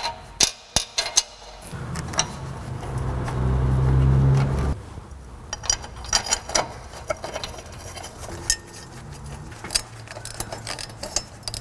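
Clinks and clicks of an exhaust cutout and its hardware being handled and offered up against a freshly welded exhaust flange. Near the start of that, a low hum swells for about three seconds and then stops abruptly.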